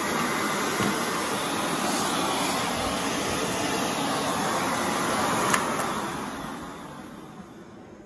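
Airway Sanitizor Mark V vacuum cleaner motor running steadily, then a click about five and a half seconds in as it is switched off, and the motor winds down, fading over the last two seconds.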